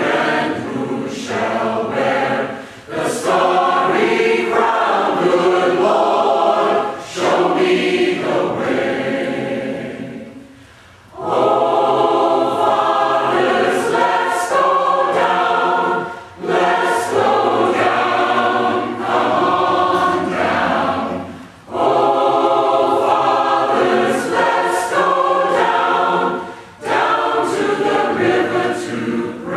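Mixed choir of women's and men's voices singing, phrase by phrase with short breaks between phrases and a longer drop in level about ten seconds in.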